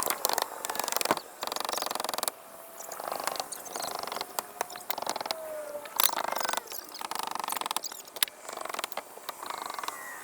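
Roof repair work: a run of sharp knocks and clicks, broken by several short rattling bursts about half a second to a second long.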